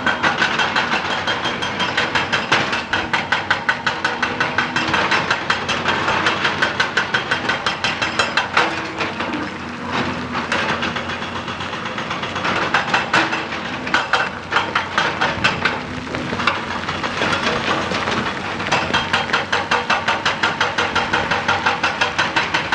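Excavator-mounted hydraulic rock breaker hammering rock, a fast even train of blows several times a second that turns less regular for a few seconds around the middle.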